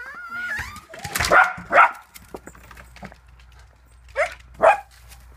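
Cockapoo barking excitedly in short barks, two in quick succession, then another pair about four seconds in, with a clatter of knocks in the first two seconds.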